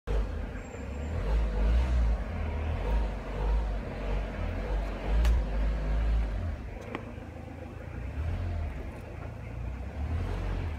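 Low, uneven outdoor background rumble, with two faint clicks about five and seven seconds in; no meowing.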